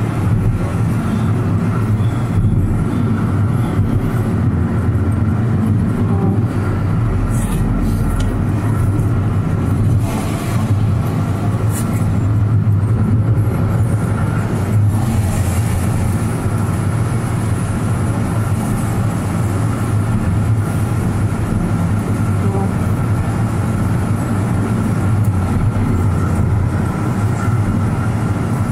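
Steady road and engine noise of a car being driven, heard from inside the cabin: a continuous low rumble with a faint steady whine above it.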